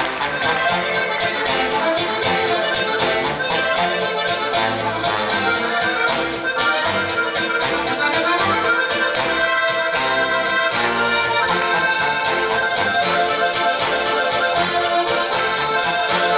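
Two diatonic button accordions (Slovenian frajtonarica) playing a folk tune together, with guitar and a bass line accompanying them.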